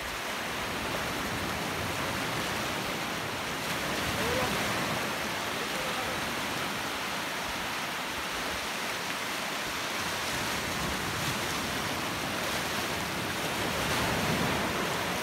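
Small surf breaking and washing over the shallows: a steady rushing hiss that swells slightly a few seconds in and again near the end.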